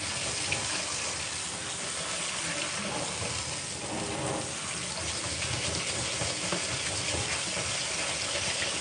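Kitchen tap running steadily through a fine-mesh strainer of sushi rice and splashing into a stainless steel sink: the rice being rinsed to wash off its surface starch.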